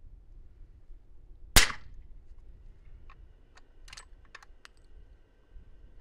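One suppressed shot from a 300 Blackout bolt-action rifle with an 8-inch barrel and a Thunder Beast Dominus-K suppressor, firing 200-grain subsonic rounds. It is a single sharp crack about a second and a half in, with a short tail. A few clicks of the bolt being worked follow a couple of seconds later.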